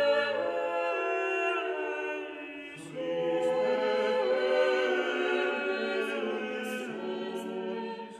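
Slow choral music: a choir holding sustained chords that shift every second or two, dipping in level about two seconds in and swelling again on a fuller chord about three seconds in.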